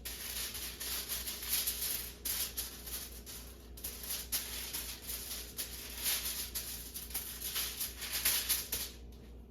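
Aluminum foil rustling and crinkling as it is handled and buttered, a continuous uneven scratchy rustle that dies down near the end.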